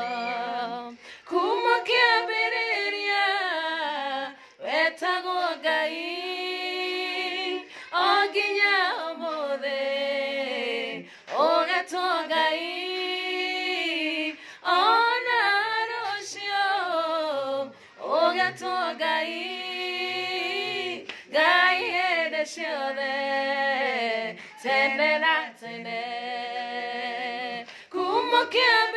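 Two women singing a cappella together in phrases a few seconds long, with wavering held notes and short breaths between phrases.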